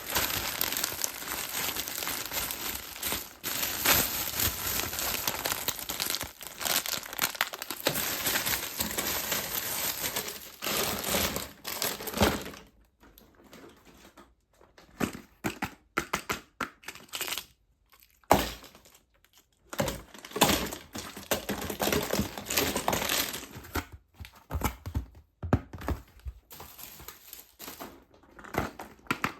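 Wrappers of surprise eggs and candy packs being crinkled and torn open by hand, a dense, continuous rustling for about the first twelve seconds. After that it turns into scattered separate crackles and light taps.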